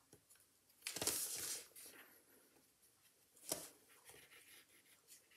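Cotton bud rubbing over an inked collagraph plate, wiping ink back out of areas meant to print pale. Soft scratchy rubbing, with a louder scrape about a second in and a shorter one about three and a half seconds in.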